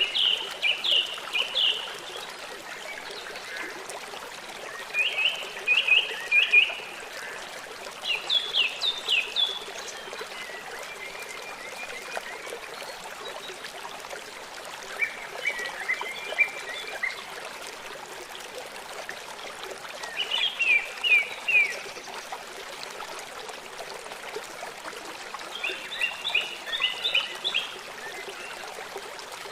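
A songbird singing short phrases of a few quick, repeated down-slurred notes, one phrase every few seconds, over the steady trickle of running water.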